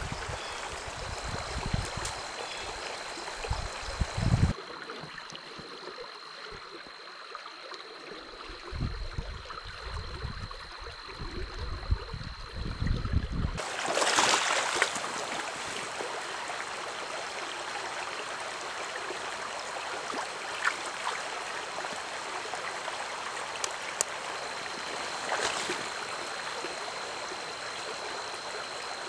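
A shallow, rocky stream running with a steady rushing hiss. Irregular low rumbling gusts sound through roughly the first half and stop abruptly, and a faint steady high tone hangs over the water sound.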